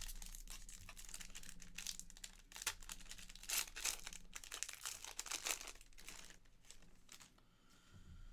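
Panini Flux basketball card packs being handled: foil wrapper crinkling and tearing and cards rustling as they are slid and flipped, busy for most of the time and thinning out after about six and a half seconds.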